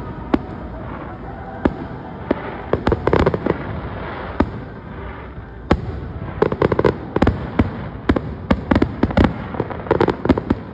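Fireworks going off: sharp cracks and pops in rapid clusters, the busiest runs about three seconds in and again from about six seconds to near the end.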